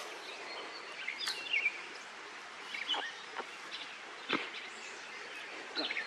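Outdoor ambience: a steady background hiss with scattered short bird chirps and a few sharp clicks.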